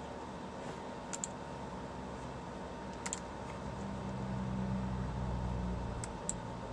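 A few light, scattered clicks on a computer keyboard over a low room hum, which swells for a couple of seconds past the middle.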